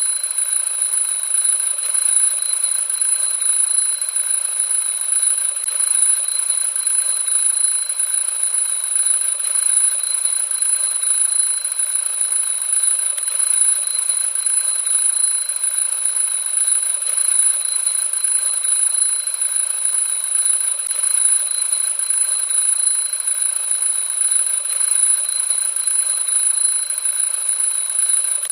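Alarm clock ringing steadily: a loud, high, unbroken ring.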